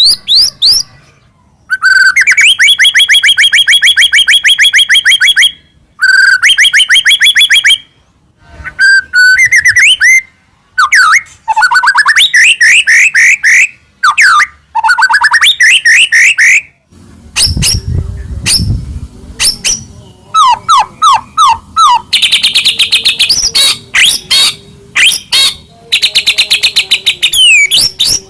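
White-rumped shama (murai batu) singing loudly in long phrases of rapid, repeated whistled notes and fast trills, broken by short pauses. There is a brief low rumble about two-thirds of the way through.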